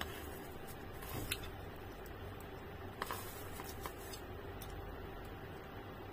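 Metal spoon scraping and clicking against a plastic sheet as rice is scooped up, with rustling of the plastic: a sharp click a little over a second in and a cluster of clicks and rustles around three to four seconds in.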